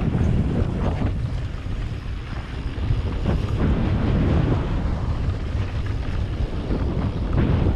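Wind buffeting an action camera's microphone as a mountain bike rides fast down a dirt track, with the tyres rumbling over the dirt and jolting over the bumps.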